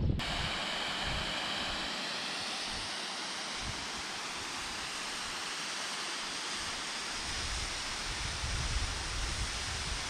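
Steady rushing water, like a hill stream or waterfall, with an uneven low rumble of wind on the microphone underneath. It starts suddenly with a cut at the beginning.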